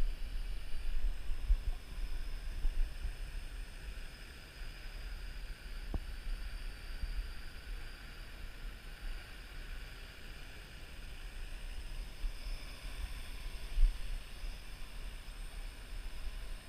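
Parrot AR.Drone 2.0 quadcopter's four propellers whirring as a faint, thin whine of several drifting pitches, as it flies overhead and comes down close. Wind buffets the microphone with a low, uneven rumble that is louder than the drone.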